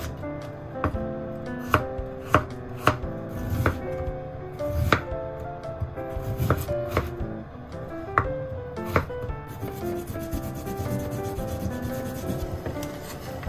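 Kitchen knife chopping carrot and daikon radish on a bamboo cutting board: about ten sharp knocks at uneven intervals, stopping about nine seconds in. Daikon is then rubbed on a small grater near the end. Soft background music with gentle notes plays underneath.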